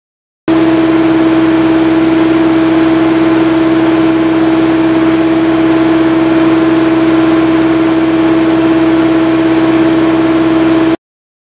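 Hydraulic drive of a Marsh Master MM-2's utility anchor installer running in reverse, backing a screw anchor out of the ground. It gives a loud, steady, high hum that starts suddenly about half a second in and cuts off suddenly near the end.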